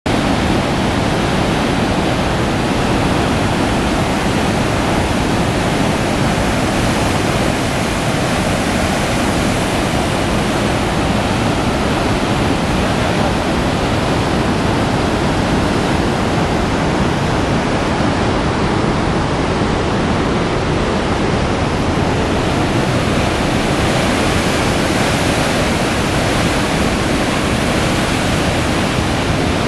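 Steady, loud rush of water from Sunwapta Falls, a large glacier-fed waterfall plunging into a rock gorge.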